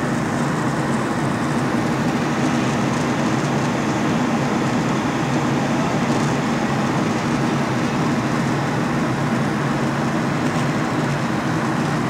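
Steady cabin noise of a jet airliner in cruise flight: a constant low rumble of engines and rushing air with a faint hum in it.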